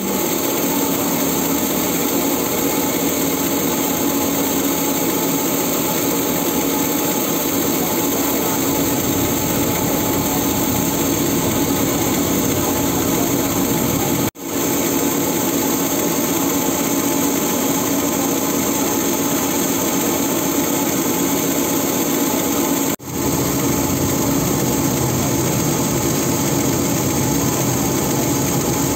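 Ro-ro ferry's engines running with a loud, steady drone, with the propeller wash churning the water at the berth. The sound dips out briefly twice.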